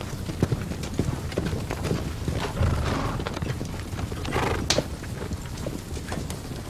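Horse hooves clopping on hard ground in irregular knocks, with a short breathy burst about four and a half seconds in.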